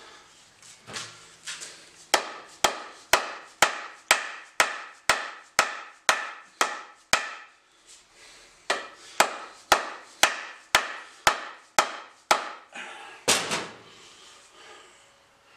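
An axe being rapped to drive its head down onto a new wooden haft: sharp wooden knocks, about two a second, with a short break midway. Near the end comes one broader, scraping knock.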